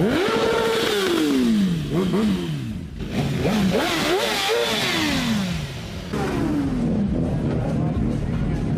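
Sport motorcycle engines revved hard several times in a row, the pitch climbing and falling with each blip of the throttle, then running on at a steadier note near the end.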